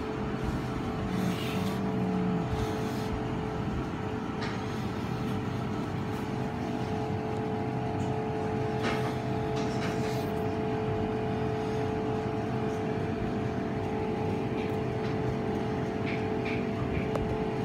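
Steady mechanical hum: an even drone holding one constant pitch over a bed of noise, with a few faint clicks.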